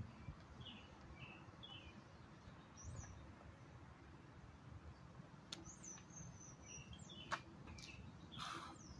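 Faint outdoor quiet with small birds chirping in short calls now and then, and a few light clicks. A brief rush of noise comes near the end.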